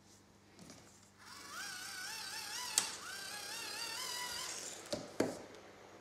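Small hand-cranked generator whining as it is turned, its pitch rising at first and then wavering up and down with each turn of the crank. Sharp clicks about three seconds in and twice near the end.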